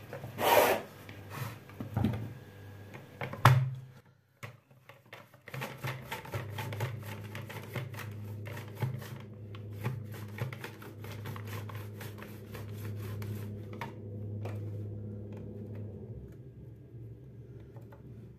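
Raw potato being sliced on a plastic V-blade mandoline: the hand guard is pushed quickly back and forth over the blade in a long run of strokes that starts about five seconds in and stops near the end. Before it come a few knocks and clatters as the potato is set in the guard, the sharpest about three and a half seconds in.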